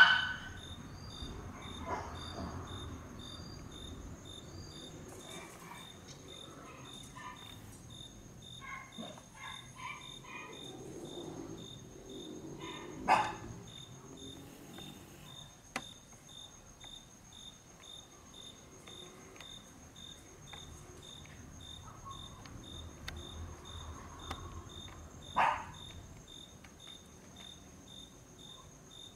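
Crickets chirping in a steady, evenly pulsing high trill. A few sharp knocks stand out over it: one right at the start, the loudest about halfway through, and another near the end.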